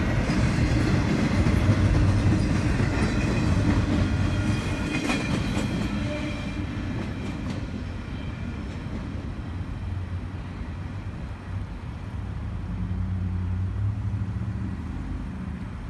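Canadian Pacific double-stack container freight train rolling past, its cars rumbling and wheels clattering over the rail joints. Loud for the first six seconds, then quieter as the train is heard from farther off.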